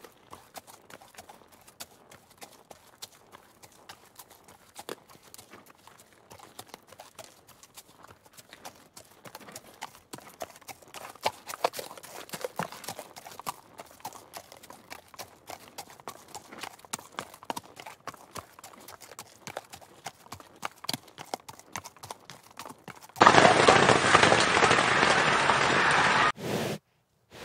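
Horse hooves clip-clopping: many sharp hoof strikes, louder after about ten seconds. Near the end a much louder, noisy burst cuts in suddenly, lasts about three seconds and stops abruptly.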